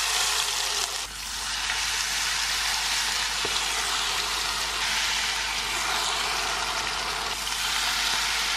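Battered shrimp tempura deep-frying in a pot of hot oil: a steady, dense sizzle of bubbling oil.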